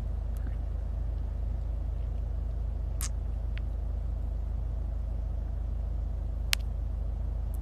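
Steady low rumble inside a stationary car's cabin, with a few light clicks, the sharpest about six and a half seconds in.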